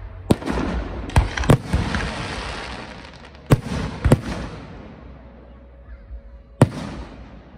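Aerial firework shells bursting: six sharp bangs spread unevenly over several seconds, three of them close together near the start. Each bang is followed by a rolling echo.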